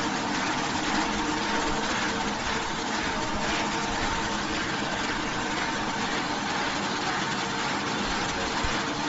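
Steady running noise of a continuous snack-frying production line, its motors and conveyors running with a constant hum and an even rushing noise over it.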